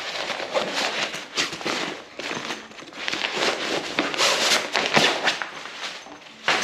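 Nylon storage bag rustling and crinkling as the folded camping chair is pulled out of it, a dense, irregular run of rustles.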